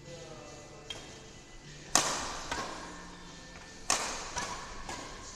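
Badminton rackets striking the shuttlecock in a rally, two sharp cracks about two seconds apart that echo in the hall, with lighter taps between them.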